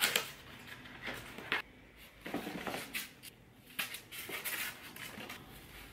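A small cardboard box being opened by hand and its packaging handled: a series of scattered rustles, scrapes and light knocks of cardboard and plastic wrap.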